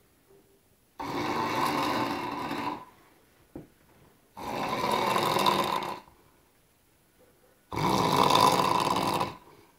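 Loud snoring: three long snores, each about two seconds, coming about every three seconds with quiet breaths between. A small click falls in the second pause.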